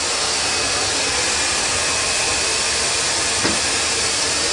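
Hair dryer running steadily, a loud even rushing blow with a faint motor whine, and one faint click about three and a half seconds in.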